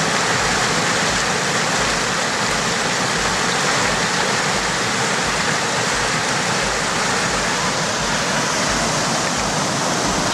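Rushing water of a river rapid pouring over a smooth rock slab: a loud, steady roar of white water close by.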